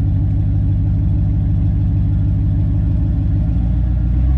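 Motor vehicle engine running steadily. Its low note changes about three and a half seconds in.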